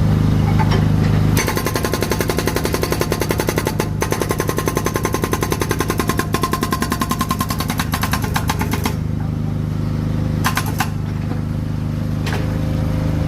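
Road construction machinery: an engine drones steadily while a rapid, even mechanical hammering starts just over a second in, runs for about seven seconds and then stops, followed by a few short knocks.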